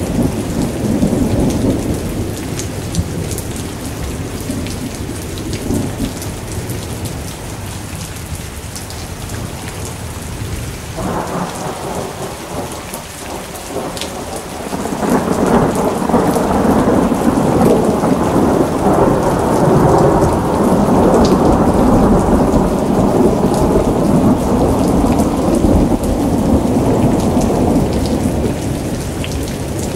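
Thunderstorm: rain falling steadily throughout, with fine close drop ticks, under rolling thunder. Shortly after a lightning flash about halfway through, a long, loud peal of thunder builds and rumbles for more than ten seconds before easing off near the end.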